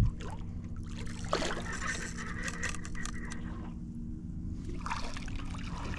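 A boat's motor idling with a steady low hum, with light water sloshing and scattered clicks and rattles on top.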